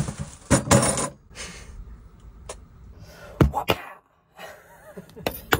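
Kitchen prep on a wooden cutting board: a few short knocks and breathy exclamations, then a chef's knife cutting the end off a yellow squash, with a sharp knock of the blade on the board near the end.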